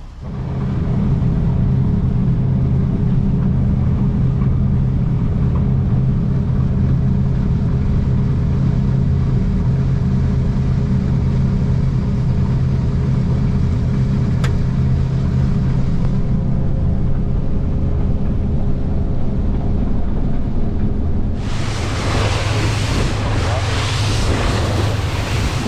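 Fishing boat's engine running steadily under way, a loud, even hum. Near the end a loud rushing hiss joins it.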